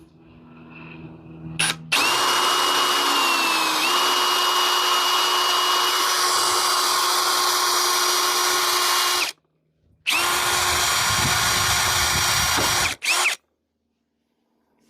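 Electric drill drilling out a rivet, running steadily for about seven seconds, stopping briefly, then running again for about three seconds. Its whine dips in pitch for a moment early on as the bit takes load.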